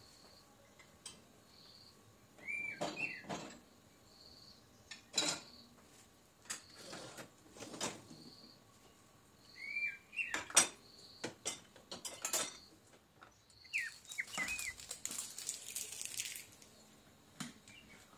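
Dishes and cutlery clinking and clattering as a dishwasher's racks are loaded, in irregular bursts with the loudest clatter about halfway through. A few short, high squeaks come in among the clatters.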